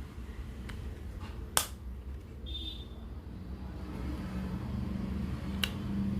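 A few sharp plastic clicks from wireless earbuds and their charging case being handled, the loudest about a second and a half in, over a low steady background hum.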